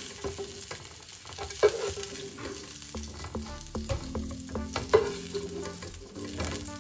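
Browned chicken pieces sizzling in hot oil in a pan while being lifted out, with a couple of sharp clinks of the utensil against the pan.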